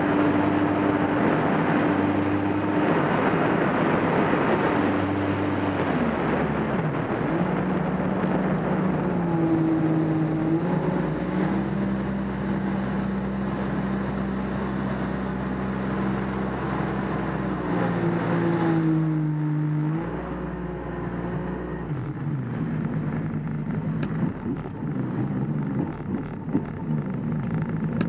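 Jet ski engine running hard with a rush of water and wind noise. The engine pitch holds, then steps down and shifts several times, and drops lower and quieter after about two-thirds of the way through as the craft eases off.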